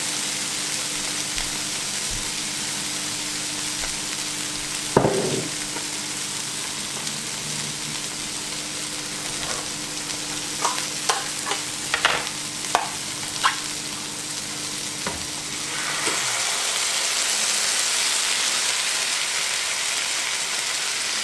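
Peas, tomato and mushroom sizzling in olive oil in a frying pan. There is a single knock about five seconds in and a run of sharp clicks around the middle, and the sizzle grows louder for the last few seconds.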